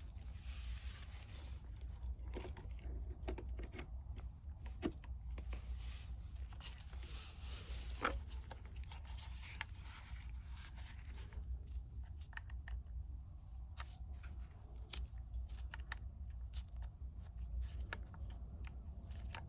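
Hands handling small parts and leads: scattered clicks, scrapes and rustles, over a steady low hum.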